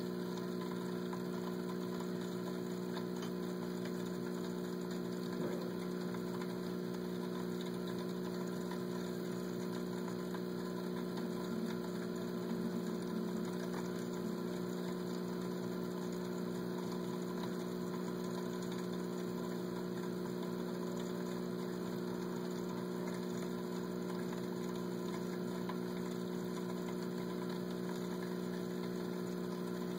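Aquarium pump humming steadily: an even electric drone with no change.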